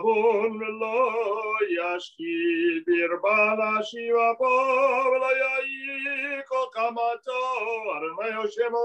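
A voice chanting a Hebrew prayer melody for the evening service in sliding phrases, holding one long steady note around the middle, heard through a Zoom call.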